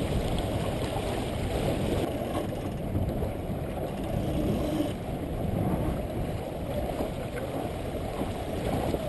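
Water rushing along the hull of a small sailboat under way, mixed with wind on the microphone: a steady, low rushing noise.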